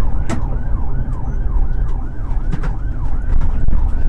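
Police car siren in fast yelp mode, sweeping up and down about three times a second, over steady engine and road rumble from the pursuing patrol car. A single sharp click sounds about a third of a second in.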